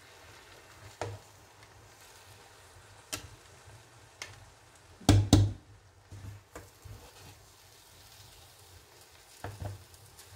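A metal serving spoon scooping cooked rice out of a cooking pot, knocking against the pot now and then. The loudest is a sharp double knock about halfway through.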